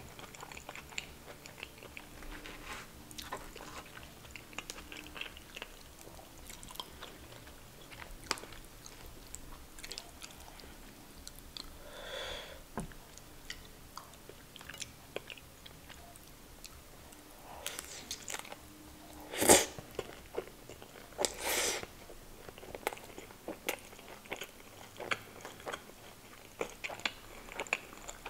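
Close-miked eating sounds: wet chewing, biting and lip smacking while curry-coated food is eaten by hand. Two or three louder smacks come a little past the middle.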